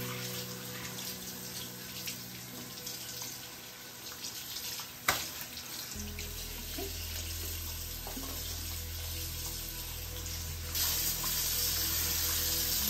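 Tap water running into a bathroom sink and splashing over a wet cat's fur as it is rinsed, louder near the end, over soft background music. A single sharp click about five seconds in.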